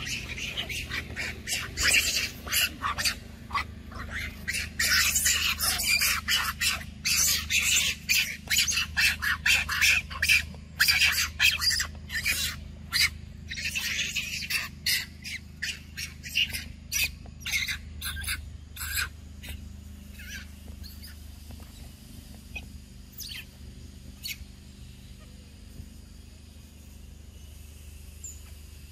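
A macaque screaming in a rapid series of short, shrill squawks, several a second, the cries of an upset monkey. The screams are loudest in the first half and thin out to a few faint calls after about twenty seconds.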